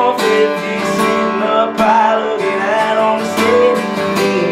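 Acoustic guitar strummed in a steady rhythm, accompanying a live country song between sung lines.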